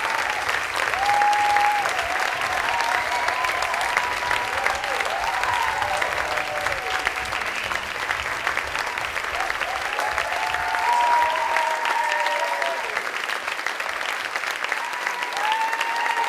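Theatre audience applauding steadily, with a few voices whooping and cheering over the clapping.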